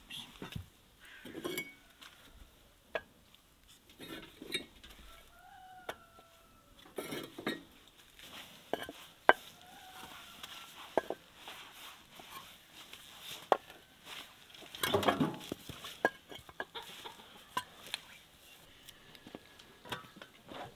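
Hollow clay bricks clacking and knocking as they are lifted and set down one by one, with one longer, louder rattle a little past the middle. Chickens cluck now and then in the background.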